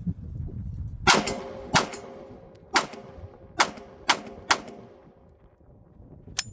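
MAC-50 (MLE 1950) 9mm pistol fired six times at an uneven pace over about three and a half seconds, each shot a sharp crack with a ringing tail. A fainter single crack comes near the end.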